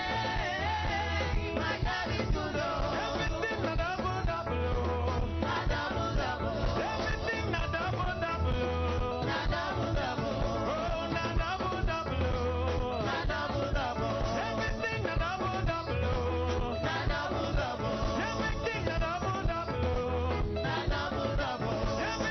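Gospel worship music with a steady bass beat and singing voices.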